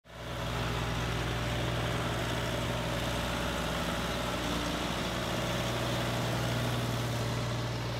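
Case 580B loader tractor's engine running at a steady speed as the tractor drives up close.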